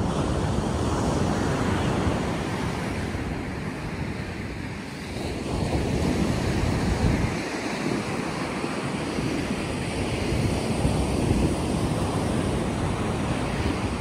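Wind buffeting the microphone, rising and falling in gusts, over the wash of ocean surf breaking on the beach.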